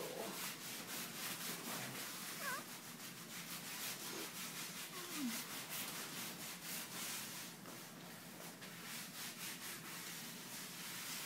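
Steady rustling and rubbing noise close to the microphone, with a newborn baby's faint, short mewling whimpers a couple of times a few seconds in.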